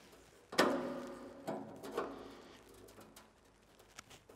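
A man's strained grunts while he wrenches with pliers at a rusted, seized screw in the welder's sheet-metal case. The first and loudest grunt comes about half a second in and fades over a second, followed by two shorter ones.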